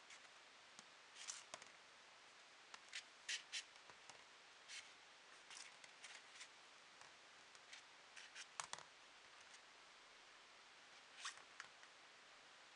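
Faint, irregular scratches and rustles, a dozen or so short ones, as a cat paws and claws at a small pink ball on a vinyl floor; between them near silence.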